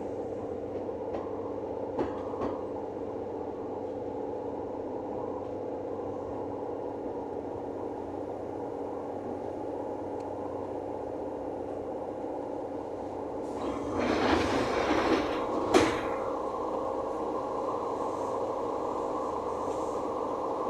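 Kintetsu 6020-series train standing at the platform with its equipment humming steadily. About fourteen seconds in, the sliding passenger doors work with a two-second hiss of air from the door engines and shut with a sharp knock.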